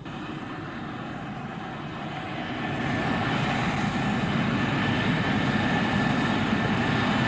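Aircraft engine running steadily with a thin high whine, getting louder about two and a half seconds in.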